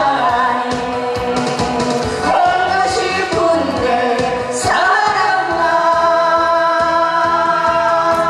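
A live duet: a woman and a man singing through microphones over instrumental accompaniment with a steady beat.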